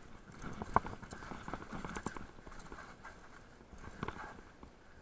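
Mountain bike clattering over a rocky trail: irregular knocks and rattles of tyres and frame on stones, the sharpest knock coming just under a second in.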